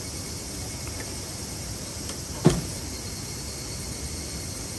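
A single sharp thump about halfway through, over a steady background hiss.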